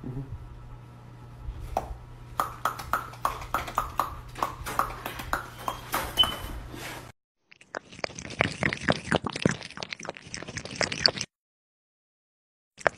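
Dog chewing hand-fed treats: crisp crunches about three to four times a second over a steady low hum. After a short gap comes a denser run of crackling crunches.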